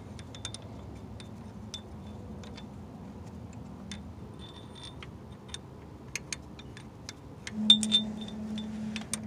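Scattered light metallic clicks and taps as bolts are threaded by hand through a harmonic balancer puller's flange into the crankshaft damper. A steady low hum comes in about seven and a half seconds in, with a few louder clicks.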